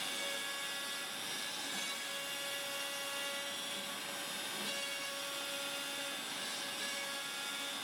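The router spindle of an X-Carve CNC, fitted with a 1/4-inch upcut spiral bit, runs at speed while it cuts a roughing pass into a wooden panel: a steady high whine over a continuous cutting noise.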